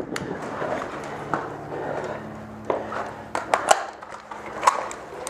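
Airsoft gunfire during a game: scattered sharp cracks and clicks of shots and BB hits, mostly in the second half, over rustling movement noise.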